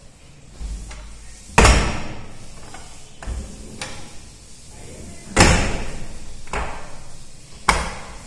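Aluminium sliding cupboard shutters pushed along their track and banging shut against the frame. There are three loud bangs, about one and a half seconds in, past the middle and near the end, each followed by a short rolling rumble, with a few lighter knocks in between.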